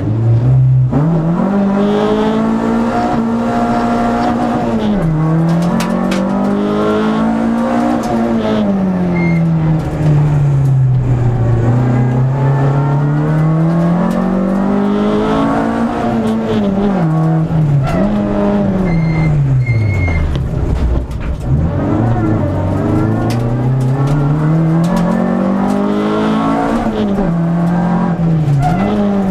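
Renault Clio II RS's two-litre four-cylinder engine at full race effort, heard from inside the cabin. Its pitch climbs and drops again and again as it revs up through the gears and comes off for corners, falling lowest about twenty seconds in before building again.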